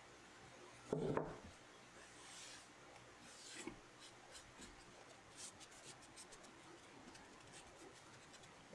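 Faint rubbing and wiping of a cloth rag working Danish oil into wood, in light strokes, with one soft knock about a second in.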